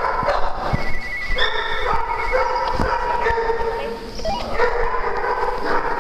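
Several dogs whining and yipping at play, with long drawn-out whines.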